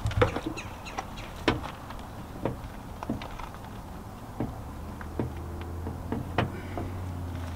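Irregular plastic clicks and knocks as the stator of a washing machine's direct-drive motor is wiggled and pulled off its mount. A low steady hum comes in about halfway through.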